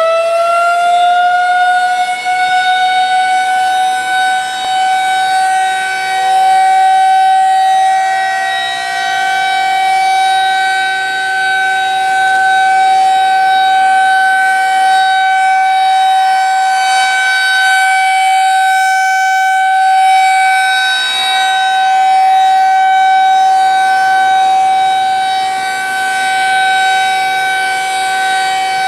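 Federal Signal 2001-SRNB electromechanical outdoor warning siren sounding for a test. It finishes winding up over the first couple of seconds, then holds a steady single tone with slow swells in loudness.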